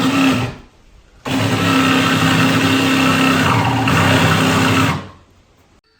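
Electric power saw cutting wood: a brief burst of the motor, then a steady run of about four seconds that winds down near the end.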